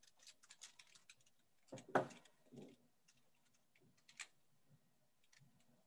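Faint, irregular clicking of a computer keyboard being typed on, heard over a video call, with a louder knock about two seconds in.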